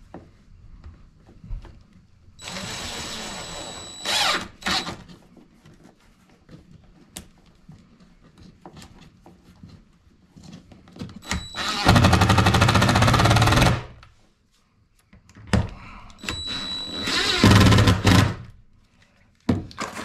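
Cordless drill driving screws into plywood in several short runs of a second or two, the loudest about twelve seconds in, with quieter handling knocks between them.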